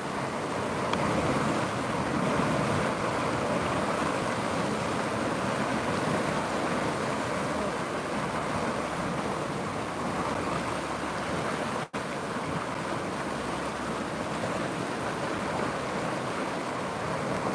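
Steady rushing of a flowing river, an even wash of water noise with a momentary dropout about twelve seconds in.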